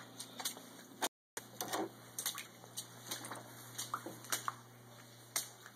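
Boots splashing through shallow floodwater covering the floor, in irregular steps, over a steady low hum.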